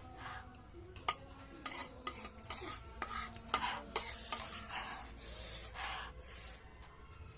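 Cutlery clinking and scraping in a bowl of noodles while someone eats, heard as scattered sharp clicks and short scraping bursts.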